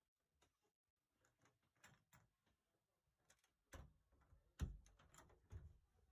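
Near silence broken by faint knocks and rustles of a wooden room door being handled and opened, the loudest knock about four and a half seconds in.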